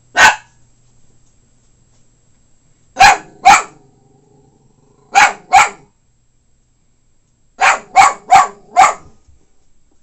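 Small Shichon dog barking in short, sharp barks: one, then two pairs, then a quick run of four near the end, with a low growl between some of them.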